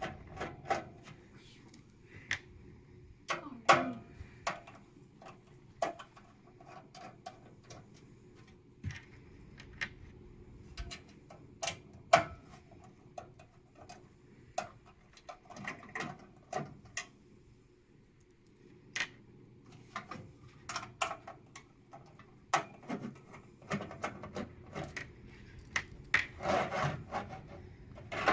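Scattered clicks, taps and rubbing from hands and a screwdriver working on a PC case, taking out the screws on the bottom to free the hard drive cage. The short knocks come irregularly, several in quick runs, with brief scrapes between them.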